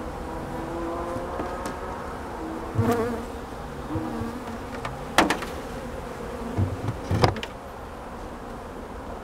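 Many honey bees buzzing around an opened hive, their hum made of several wavering pitches. A few sharp knocks sound over it, the loudest about five and seven seconds in, as the wooden hive covers are set in place.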